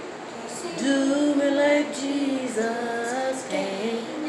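Voices singing a gospel song, with long held notes that bend up and down in pitch.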